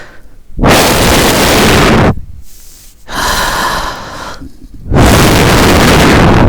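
Exaggerated deep breaths blown straight into the microphone, gusting like a typhoon. Two very loud breaths of about a second and a half each, with a quieter one between them, are taken to calm nerves.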